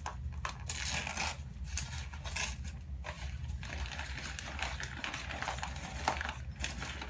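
Packaging being handled and unwrapped: irregular rustling and crinkling with small clicks, over a steady low hum.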